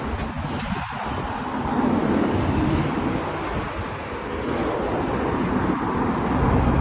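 Road traffic passing on a street, with wind buffeting the phone's microphone; the traffic noise swells about two seconds in and again near the end.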